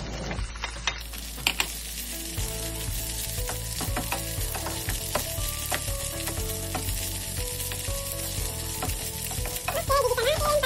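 Chopped spinach sizzling in oil with sautéed onion in a frying pan, the sizzle starting about a second in, while a wooden spatula stirs it with many short clicks and scrapes against the pan.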